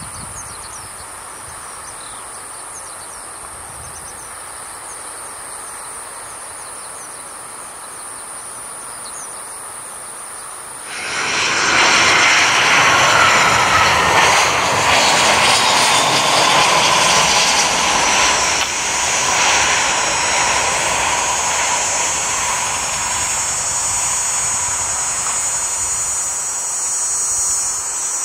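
Tigerair Taiwan Airbus A320 jet airliner on approach to land, its engines giving a loud rushing noise with a steady whine. It starts abruptly about eleven seconds in and stays loud; before that there is only a much quieter steady background.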